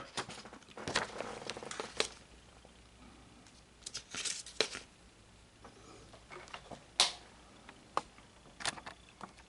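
Faint scattered clicks and rustles, with a cluster about four seconds in and a sharper click about seven seconds in.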